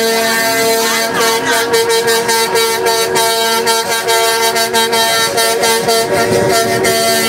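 Semi-truck air horns sounding steadily, held without a break. Short sharp clicks come and go over the horn tone through the middle.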